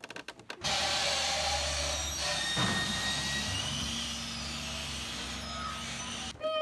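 Garbage-truck compactor sound: a steady mechanical hum and hiss that starts abruptly about half a second in and cuts off abruptly near the end.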